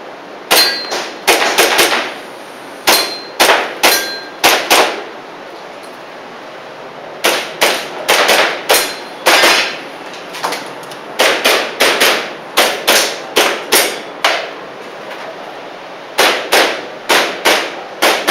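Airsoft gas pistol firing in quick strings of shots, about two a second, with BBs clanging off metal targets. It stops for about two seconds near the middle, then fires a longer run.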